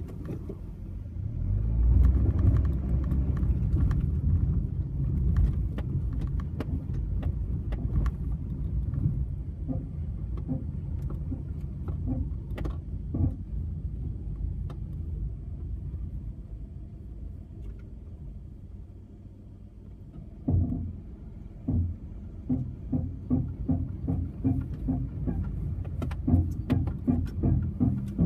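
Honda N-BOX kei car on a steep hill: a steady low rumble from the car with short knocks and clicks, which become frequent and fairly regular, about two a second, in the last several seconds. The knocking is the abnormal noise (異音) the owner is recording.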